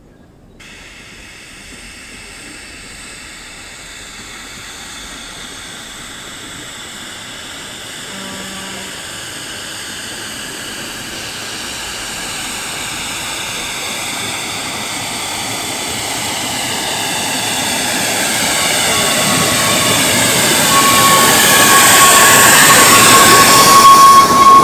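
Narrow-gauge steam locomotive hauling a train of wooden carriages, approaching and passing close by. It grows steadily louder, from faint to loud. A high steady note joins it for the last few seconds.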